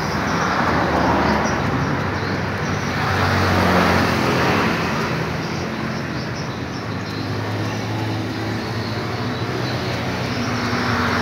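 Road traffic: a steady engine hum with tyre noise that swells and fades as vehicles pass, twice.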